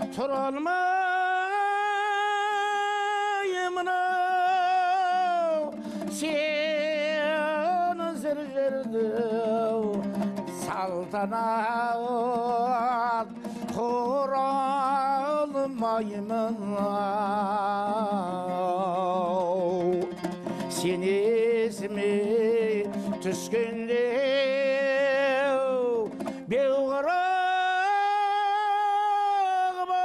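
A man singing a Kazakh folk song in long held notes with a wavering vibrato, accompanied by a strummed dombra. The phrases are separated by short breaths.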